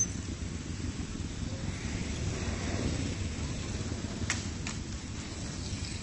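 Steady low outdoor background rumble, with two short clicks about half a second apart a little past four seconds in.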